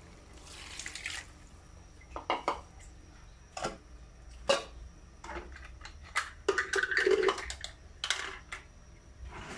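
Scattered clinks and knocks against an aluminium cooking pot, with a brief pour of liquid from a bowl into the pot about half a second in.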